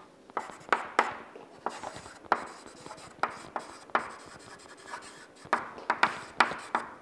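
Chalk writing on a chalkboard: an irregular run of sharp taps and short scratches as letters are written.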